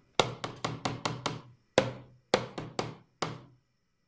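Rapid sharp knocks in short runs, about four or five a second, each ringing briefly.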